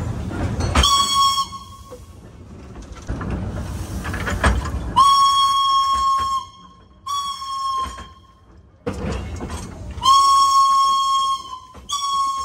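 Steam whistle of steam locomotive B 5112 sounding five blasts on one steady high note: a short toot, a long blast, a shorter one, another long blast and a short one at the end. The running rumble and hiss of the moving locomotive fill the gaps.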